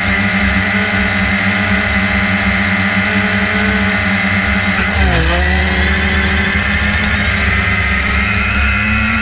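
Drone motors and propellers whining steadily, heard from the camera on board. About five seconds in the pitch dips sharply and then climbs back.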